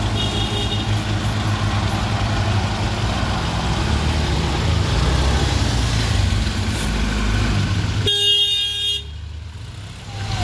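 Heavy truck engine running steadily. About eight seconds in, the engine sound cuts off abruptly and a vehicle horn sounds for about a second.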